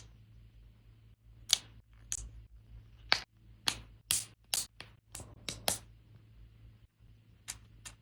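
Small plastic LEGO pieces clicking and tapping as they are handled, about a dozen sharp, separate clicks at uneven intervals.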